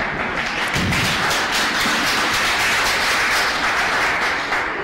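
Audience clapping, a dense even patter that dies away near the end.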